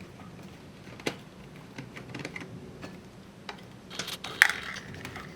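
Scattered light clicks and taps of a small screwdriver working tiny screws out of a car navigation unit's screen assembly, with a short cluster of sharper clicks about four seconds in.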